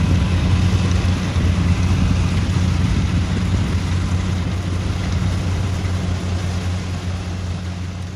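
Kubota rice combine harvester running steadily while cutting rice: a constant engine drone with the rush of its cutting and threshing machinery. The sound fades down near the end.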